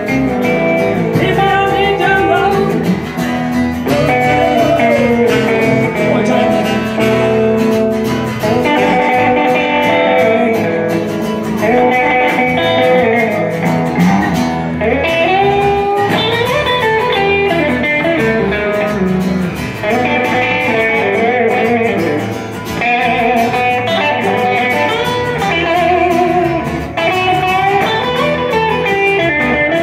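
Live blues played on guitars: an electric guitar takes a lead solo of bent, vibrato-laden notes over acoustic guitar chords.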